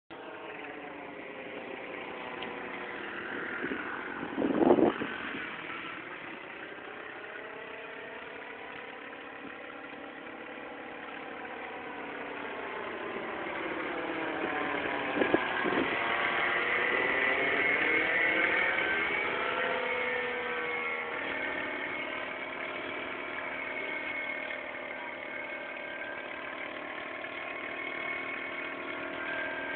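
Parapower paramotor's Solo 210 single-cylinder two-stroke engine and propeller running steadily in flight overhead, its pitch slowly bending up and down as it passes and swings round, loudest about two-thirds of the way through. Two short bumps, the louder about five seconds in.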